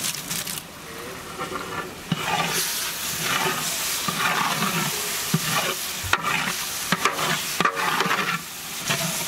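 Finely chopped tomatoes sizzling as they go into hot oil and fried masala paste in a large metal pot, stirred with a flat metal ladle that scrapes and knocks against the pot in irregular strokes.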